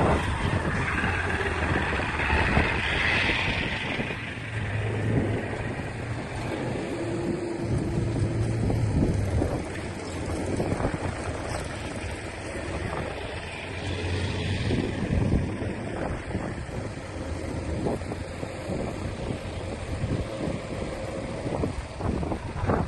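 Engine of a heavy earthmoving machine running, its low hum swelling and easing several times, with scattered knocks.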